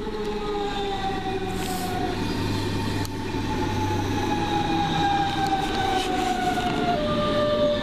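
DB Class 425 electric multiple unit pulling into the platform and braking. Its traction-motor whine falls slowly in pitch, stepping down once near the end, over a growing rumble of wheels on rail.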